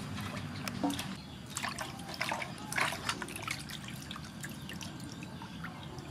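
Water splashing and dripping as a squid's body tube is rinsed by hand in a metal basin of water. The splashes are heaviest between about one and a half and three seconds in, then give way to scattered drips as the tube is lifted and drains.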